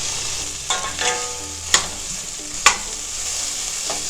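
Sliced onion, ginger and garlic sizzling steadily in hot vegetable oil in a skillet, stirred with a utensil that knocks against the pan four times, the two loudest knocks near the middle.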